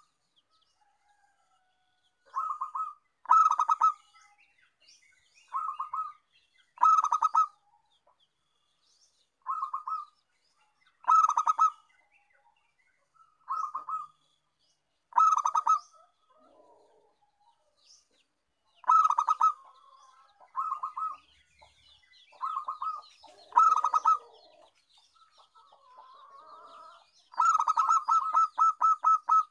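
Zebra dove (perkutut) calling: short bursts of rapid, staccato coos repeated every one to two seconds, with a longer unbroken run of coos near the end. Faint high chirps sound between the bursts in the later part.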